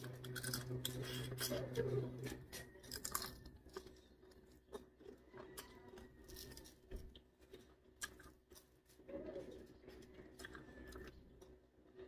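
Close-up eating sounds: chewing and mouth noises with small clicks and crackles as cooked shrimp shells are peeled by hand, busier in the first few seconds and then faint and sparse. A low hum stops a little over two seconds in.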